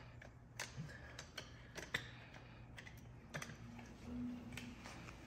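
Irregular sharp metallic clicks and taps, about a dozen, as a wrench is worked on the top nut of a shock absorber.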